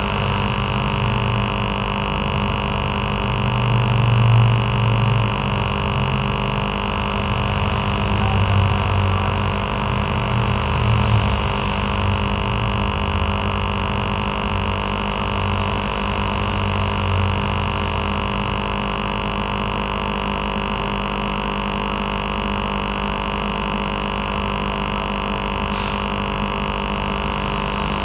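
Aquarium aerator air pump running with a steady buzzing hum, its low rumble wavering in strength.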